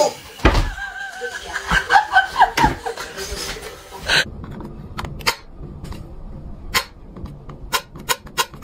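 A person laughing, then, after a cut, a run of sharp separate clicks and taps.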